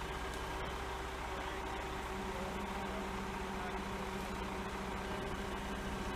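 The engine of a boom truck running steadily while it powers the raised aerial boom, a low even hum whose pitch steps up a little about two seconds in.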